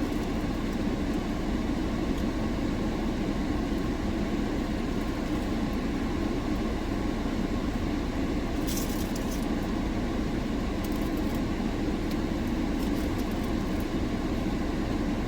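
Car air conditioning blowing hard on a high fan setting, a steady rushing noise inside the car cabin, with a few faint clicks about two-thirds of the way through.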